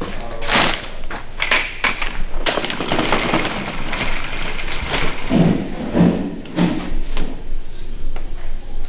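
Workshop handling noise: a string of knocks, clatters and scraping as a gloved worker moves tools and plastic buckets about, with a few dull thuds about five to seven seconds in.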